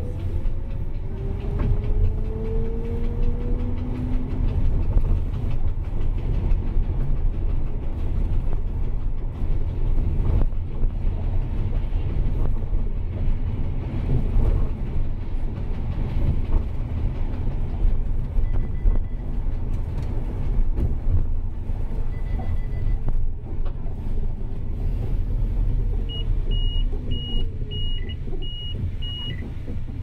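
Steady low rumble of a car driving on city streets, its engine tones rising in the first few seconds. Near the end comes a short run of about five high beeps.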